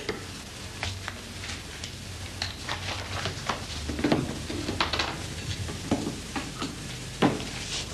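Scattered light clicks and rustles of papers and objects being handled on a desk, over an old film soundtrack's steady low hum and crackle. One sharper click stands out near the end.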